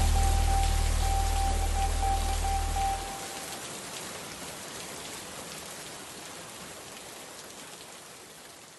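A song's final held bass note and a high steady tone ring out and stop about three seconds in, leaving the even hiss of steady rain, which slowly fades away.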